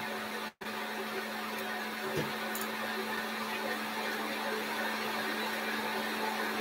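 Electric stand mixer motor running steadily, mixing cake batter, with a steady hum; the sound cuts out for an instant about half a second in, and there is a light knock about two seconds in.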